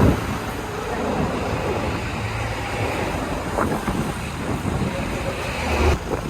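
Road traffic noise: a steady rushing hiss of passing vehicles, with a brief louder swell near the end.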